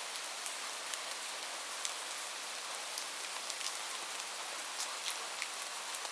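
Steady rain falling, a continuous hiss with many individual drops ticking sharply on a hard surface.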